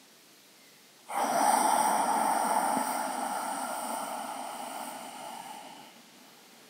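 A long exhale of breath close to the microphone, starting suddenly about a second in and fading away over about five seconds.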